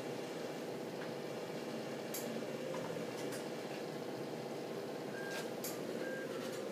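Steady machinery hum, with a few sharp clicks and two short high beeps about a second apart in the second half.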